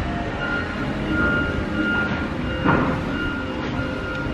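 Wheel loader's diesel engine running, with its backup alarm beeping about every two-thirds of a second; a short clank about two and a half seconds in.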